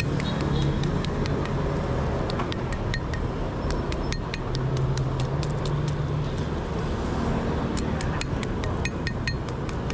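Metal tools clicking and clinking in quick, irregular strikes during a motorbike tyre and inner-tube repair, over a steady hum of passing motorbike traffic.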